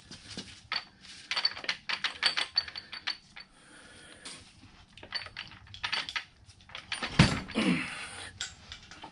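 Metal clinking, rattling and knocking as the cast-iron feed distribution unit of a Kearney & Trecker 2HL milling machine, with its gears and splined shaft, is shifted by hand against the mill's knee while being lined up. A heavier clunk comes about seven seconds in, followed by a brief falling tone.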